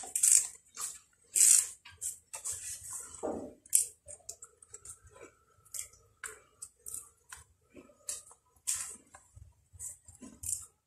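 Moringa leaves being stripped off their stems by hand over a plastic basin: irregular leafy rustling and small snaps, with a few sharper swishes in the first four seconds.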